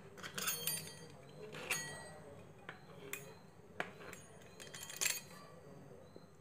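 A small kitchen knife cutting through strips of dough and striking the tabletop: light, scattered clicks and knocks, a short clatter near the start and then single taps every second or so.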